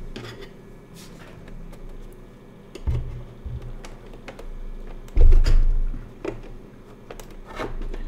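Small scattered clicks and ticks of a metal pry tool working at the plastic clips of an all-in-one PC's back case. There are two low, heavy thumps, about three seconds in and a louder one about five seconds in, as the machine is moved on the desk.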